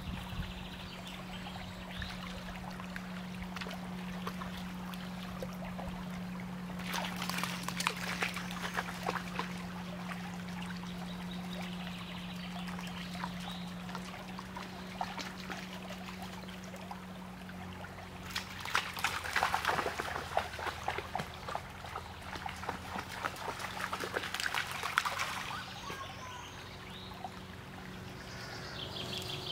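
Small woodland brook trickling steadily, with two louder stretches of crackling, splashy noise lasting a few seconds each.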